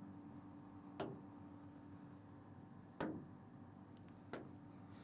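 Three sharp taps of a pen on an interactive display board's screen, about a second in, about three seconds in and just after four seconds, over a faint steady hum.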